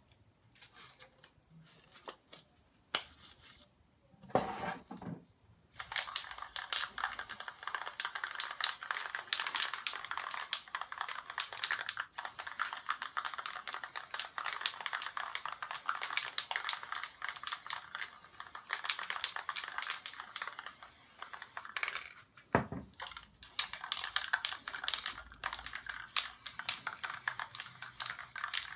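Aerosol spray-paint can spraying: a long crackling hiss starting about six seconds in, broken briefly near the middle, then shorter sprays after a knock about two-thirds of the way through.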